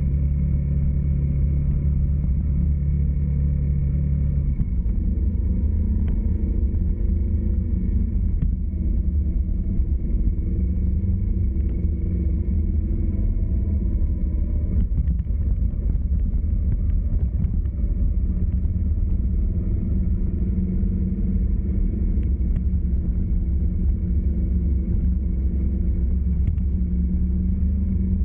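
Vehicle on the move: a steady low engine and road rumble whose pitch shifts up and down several times as the engine speed changes.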